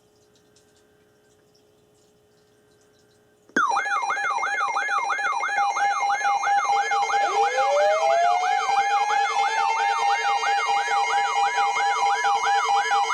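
Near silence, then about three and a half seconds in several weather alert radios go off at once, triggered by a severe thunderstorm warning: a warbling alarm sweeping up and down about two and a half times a second, over steady alert tones, joined about halfway through by another alarm that rises in pitch and then holds.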